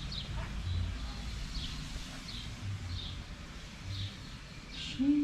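A small bird chirping repeatedly: short, high, falling notes about once or twice a second, over a low steady background rumble.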